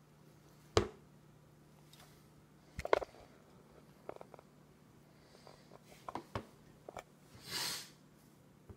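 A baby's spoon and clear food container knocking and clinking against each other and against a plastic high-chair tray as she eats: a series of irregular sharp knocks, with a brief rustling hiss shortly before the end.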